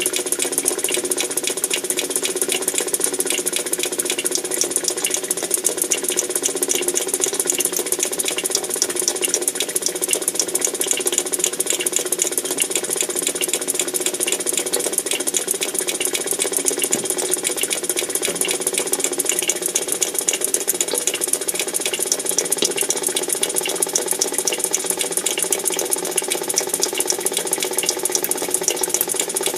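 Continuous fast mechanical rattling, a dense run of ticks over a steady hum that holds unchanged throughout. The uploader presents it as the sound of underground tunnel-digging work picked up at a borehole listening site.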